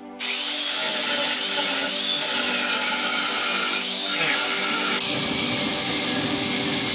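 Angle grinder fitted with a chainsaw attachment running at full speed, its chain cutting into wood. The sound starts sharply and changes abruptly about five seconds in.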